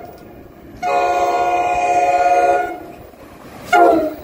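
Commuter train's multi-note horn chord sounding as the train comes through the station. There is a long blast of about two seconds beginning about a second in, then a short, louder blast near the end that drops in pitch as the train passes, over the rumble of the train.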